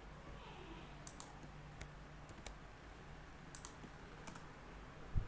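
A few scattered clicks of a computer mouse and keyboard keys as a spreadsheet formula is entered, with a low thump near the end.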